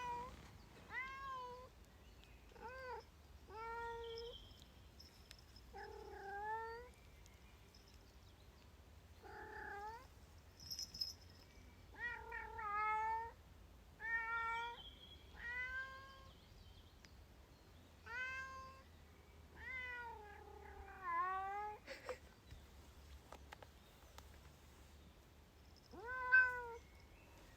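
Domestic cat meowing over and over, long drawn-out complaining meows, some bending down in pitch and a few coming in quick runs, in protest at the wet ground underfoot.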